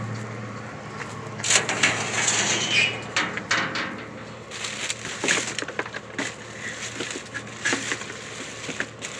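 Rubbish in a dumpster being dug through by hand: irregular crackling, rustling and crunching of bags and packaging, with a low hum fading out in the first second.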